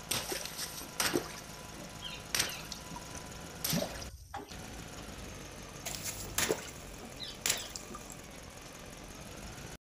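Water balloons bursting under vehicle tyres: a series of about seven sharp pops, some with a splash of water, over the low hum of an idling engine.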